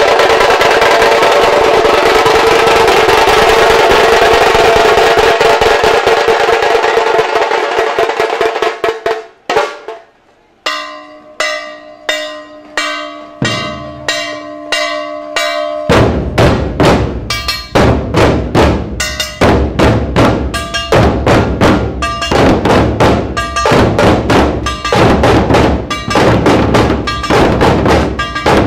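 Dhol-tasha ensemble drumming. Tasha snare drums play a fast continuous roll that stops about nine seconds in. After a short gap come sparse strokes, and from about halfway the big barrel dhols come in with a heavy, steady beat alongside brass jhanj cymbals.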